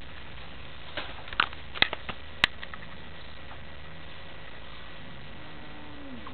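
A handful of sharp clicks and taps between about one and two and a half seconds in, the loudest near the end of that run, over a steady background hiss.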